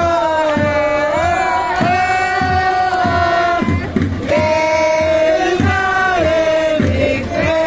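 Stadium crowd of football supporters singing a chant in unison, long held notes, with a drum beating about twice a second.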